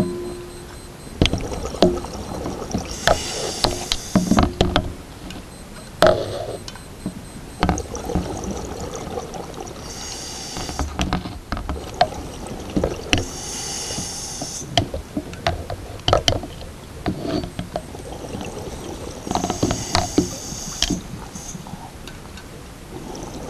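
Underwater sound of scuba gear: a diver's air bubbles rushing out in about four bursts a few seconds apart, each lasting about a second, with scattered clicks and knocks from the equipment between them.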